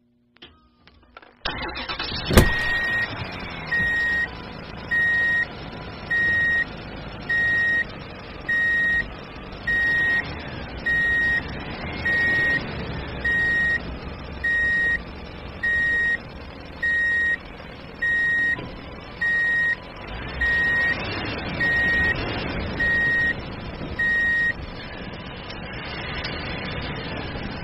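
A truck engine starts up and runs steadily, with a sharp click just after it starts. Over it, a reversing alarm beeps about once every 1.3 seconds and stops a few seconds before the end.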